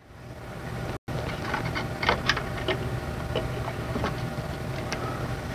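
Scattered light clicks and taps of hardware being handled as a graphics card is slid into a PC case, over a steady low hum; the sound drops out briefly about a second in.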